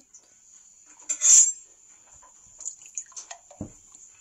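Glassware handled on a stone countertop: a loud, brief scraping knock about a second in, then a few light clinks and a dull knock as a glass pitcher is brought to a drinking glass.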